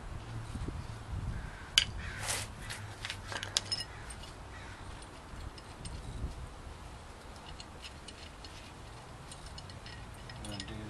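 Screwdriver prying and scraping at the metal centre of a wheel hub: a few sharp metal clicks and scrapes about two to four seconds in, the loudest near two seconds, then lighter ticks of the tool against the hub.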